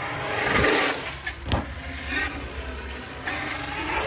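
Traxxas X-Maxx 8S electric RC monster truck driving on skatepark concrete: tyres rushing over the concrete and the motor rising and falling with the throttle, with one sharp knock about a second and a half in.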